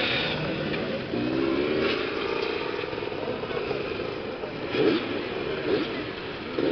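Several off-road motorcycle engines idling and being revved up and down, with two short throttle blips rising in pitch about five and six seconds in.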